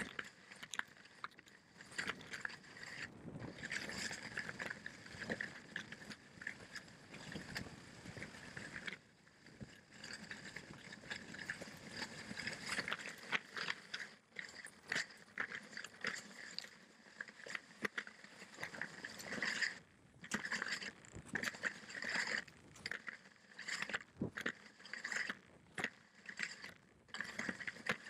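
Salomon skis sliding and scraping over packed snow on a downhill run: an uneven swishing hiss broken by frequent small clicks and knocks.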